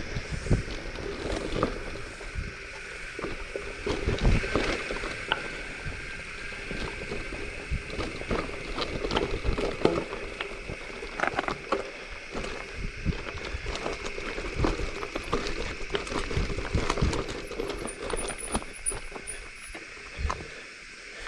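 Mountain bike rattling and crunching over a loose, big-gravel trail, with irregular knocks and clatter from the frame and tyres, heard through a chest-mounted camera. A few faint high chirps come in over the second half.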